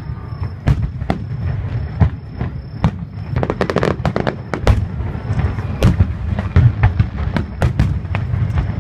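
Aerial fireworks bursting in quick succession: many sharp bangs over a continuous low rumble, with a dense run of crackling about halfway through.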